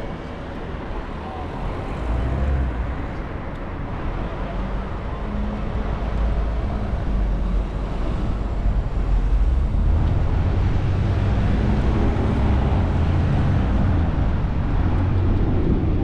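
Road traffic heard from a moving bicycle: a steady low rumble of car engines and tyres with wind on the camera microphone, getting louder about ten seconds in.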